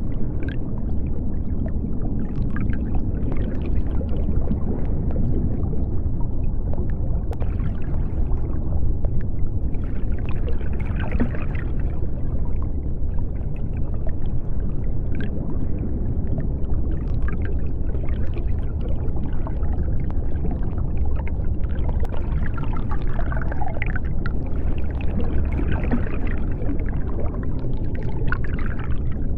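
Underwater ambience: a steady deep rumble with scattered small bubbling clicks.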